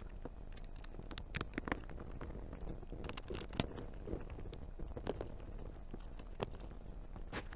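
Irregular small clicks and taps of hand work on a graphics card being reassembled: screws, screwdriver and plastic fan shroud parts, over a steady low hum.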